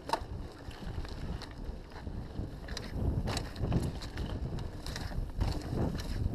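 Mountain bike descending a dirt forest trail at speed: wind buffeting the camera microphone and the tyres rumbling over the ground, with the bike clattering over bumps as short knocks.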